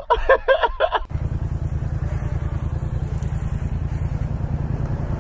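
Motorcycle engine running steadily with an even, rapid low pulse, starting abruptly about a second in.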